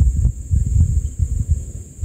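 Wind buffeting the microphone: an irregular low rumble that rises and falls in gusts, over a steady high hiss.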